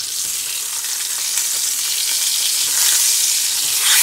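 Salmon fillets sizzling in butter and oil in a cast-iron skillet, a steady hiss that gets louder about three seconds in as a fillet is turned over.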